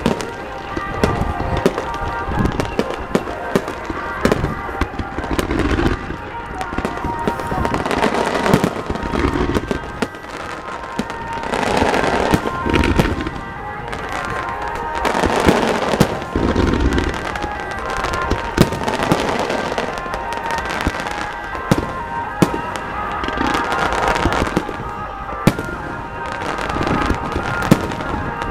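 Fireworks bursting in a dense barrage: many sharp bangs and booms in quick succession, one on top of the next, with crackle between them.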